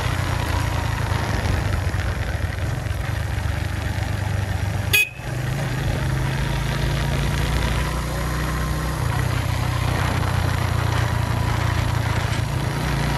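Suzuki GS150's single-cylinder four-stroke engine running steadily while riding, with one short click about five seconds in.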